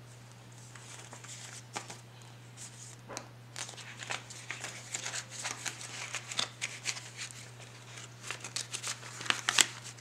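Paper banknotes and a cash envelope rustling and crinkling as the bills are handled and tucked in, in quick irregular bursts, with pen scratches on paper early on. A faint steady low hum runs underneath.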